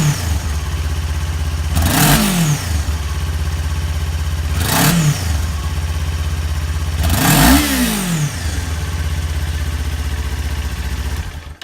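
Kawasaki Ninja 400 parallel-twin engine idling through a Musarri GP slip-on exhaust, its resonator still fitted, blipped a few times. Each rev rises and falls quickly, about every two to three seconds, the last one the longest, with a steady idle in between.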